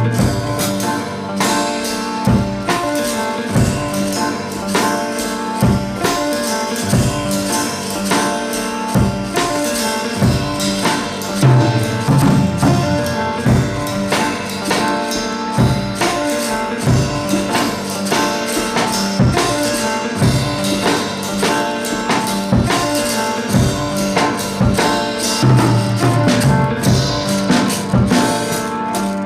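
Background music: a song with a steady drum beat and tambourine.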